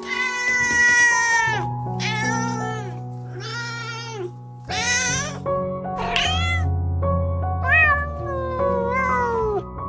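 A cat meowing again and again, about seven meows in a row, some rising then falling in pitch, over background music with held notes.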